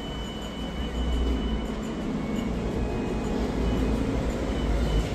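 Steady low rumble of city traffic, with a thin high steady tone for the first couple of seconds.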